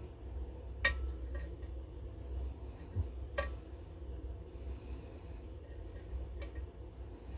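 Lock pick working the pins of a Goal GCY-79 lock: three sharp small metallic clicks, about a second in, halfway through and near the end, with a few fainter ticks over a low steady hum.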